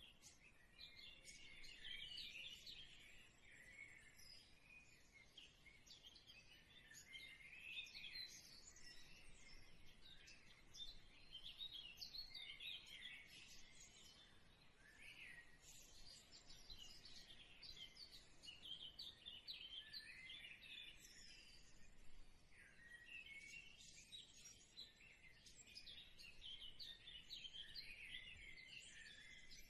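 Sfenj dough rings deep-frying in hot oil: a faint, continuous sizzle made of many small irregular crackles.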